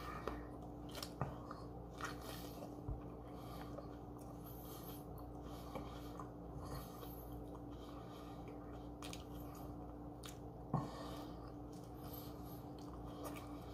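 A person chewing a bitten-off mouthful of a fast-food sandwich, with soft wet mouth sounds and a few small clicks. One sharper click comes late on. A faint steady hum runs underneath.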